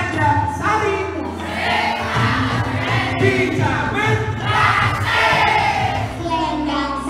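Music with several voices singing together over instrumental accompaniment.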